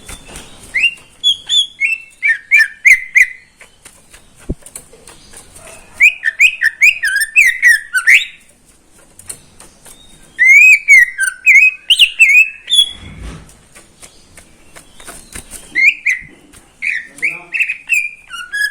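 Cucak ijo (green leafbird) singing in four loud bursts of rapid, varied whistled notes, each phrase lasting one to two seconds with short pauses between.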